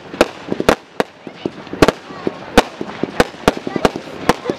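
Professional display fireworks going off: a rapid, irregular string of sharp bangs, about a dozen in under five seconds, as small shells burst overhead.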